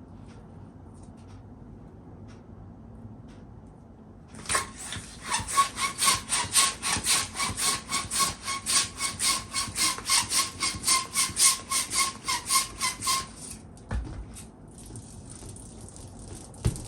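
Hand balloon pump worked in quick, even strokes, about four a second, each a rasping rush of air with a thin steady tone through the run, starting about four seconds in and lasting some nine seconds. A single thump follows shortly after.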